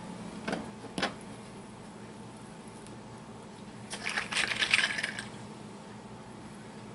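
Hands handling food and packaging over a plastic cutting board: two light knocks half a second apart near the start, then about a second of crisp crinkling a little past the middle. A low steady hum sits underneath.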